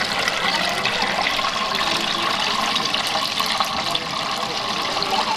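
Oil sizzling in a tabletop deep fryer as kushikatsu skewers fry, a steady hiss with fine crackling.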